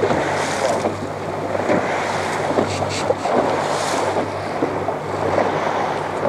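A boat's engine runs with a steady low hum, under wind buffeting the microphone and the wash of waves against the hull.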